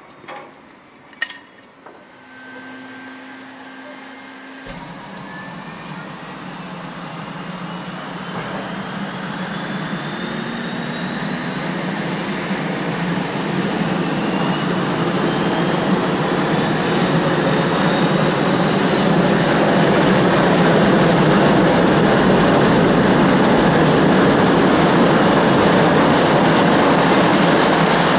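Turbine aircraft engine starting up: a whine climbs slowly in pitch while, from about five seconds in, the engine noise builds and then levels off loud near the end. Two sharp clicks near the start.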